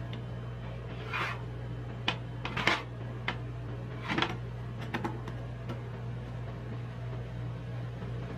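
Metal spatulas scraping and tapping on a steel cold plate as a sheet of frozen ice-cream base is scored into strips and rolled up: a handful of short scrapes over a steady low hum.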